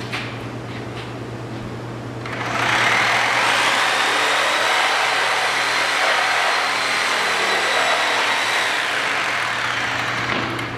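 Bosch electric reciprocating saw starting about two seconds in and running steadily at speed as it cuts into a wooden pallet, with a steady high whine, then stopping near the end.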